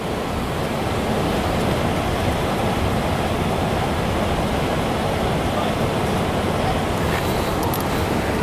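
Steady rush of flowing mountain-stream water.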